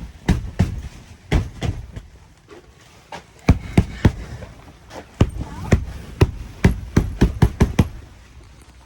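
Repeated dull thumps of blows against the canvas of a tent roof, knocking built-up snow off it. The strikes come irregularly, a few a second, with a short pause a couple of seconds in.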